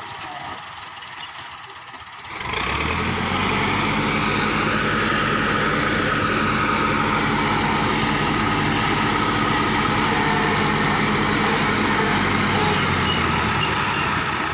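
Massey Ferguson tractor's diesel engine running steadily under load as it drives a PTO rotary tiller modified into a bed former, cutting into the soil. The sound becomes suddenly much louder about two seconds in.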